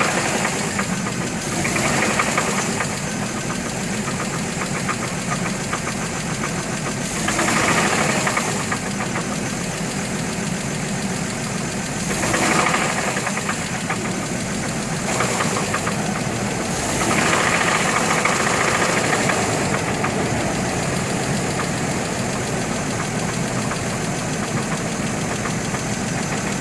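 2003 GMC Envoy engine running with a knocking noise whose cause the owner has not found; one cylinder, number 3, tested lower on compression than the others. The sound swells louder briefly about four times.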